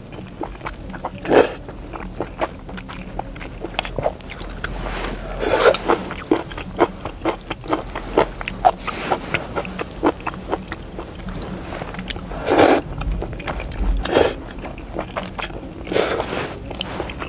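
A person slurping chewy noodles coated in a sticky sauce, with several loud slurps a few seconds apart and soft wet chewing and chopstick clicks in between.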